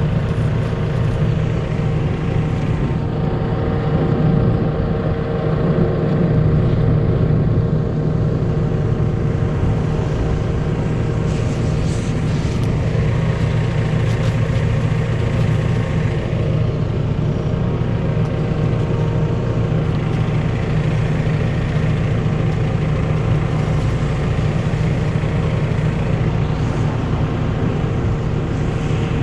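Engine of a work machine running steadily at a constant pitch, a continuous low drone with a steady hum over it.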